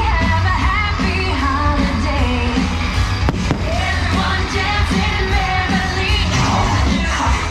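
Loud pop-rock holiday song from the fireworks show's soundtrack: singing over a heavy bass beat. A single sharp bang, a firework going off, cuts through about three seconds in.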